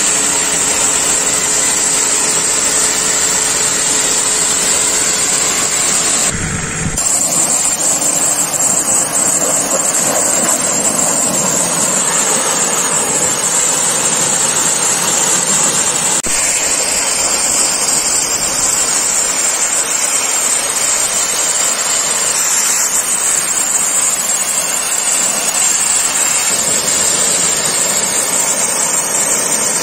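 Global Power GPMK4 commercial pressure washer running under load: its 3 kW electric motor and ceramic plunger pump drive a steady, loud hiss of high-pressure water from the lance, first spraying into the air, then blasting dirt off a road surface. A brief break about six seconds in.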